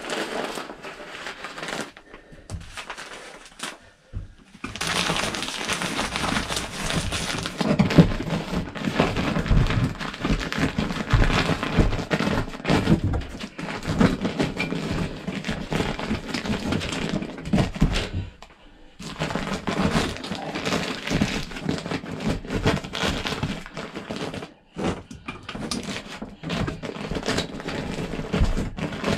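Fiberglass insulation rustling and crinkling as it is stuffed by hand through an opening into the cavity between a travel trailer's ceiling and roof, with scattered cracks and knocks. The handling stops briefly a few times.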